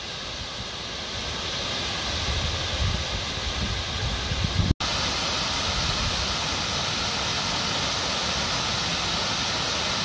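Waterfall pouring over a low stone weir into a rocky pool: a steady rushing of falling water. It drops out for an instant about halfway.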